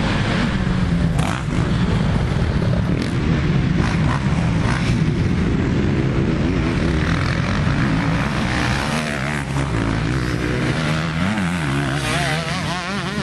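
Motocross dirt bike engines revving hard on the track, the pitch rising and falling again and again as the riders work the throttle.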